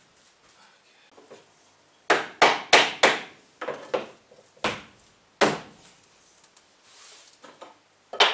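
Sharp wooden knocks on plywood subfloor sheeting: a quick run of five about two seconds in, then single knocks spaced out over the next few seconds, and one more near the end, as a sheet is worked into place along the bus wall.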